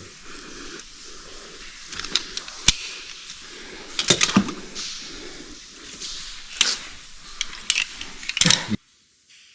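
Metal climbing hardware, carabiners and rigging on a cow's tail lanyard, clinking and clanking in irregular sharp clicks while a caver unclips and reclips at a rope anchor. The sounds stop abruptly near the end.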